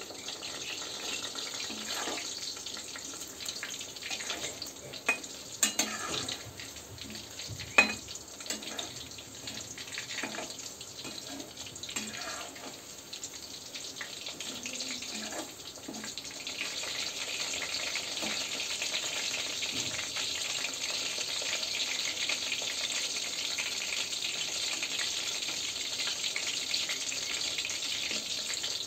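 Chicken pakoras deep-frying in hot oil in a steel kadai: a steady sizzle that grows louder about halfway through. A few sharp metallic clicks come early on as the metal slotted spatula knocks against the pan while turning the pieces.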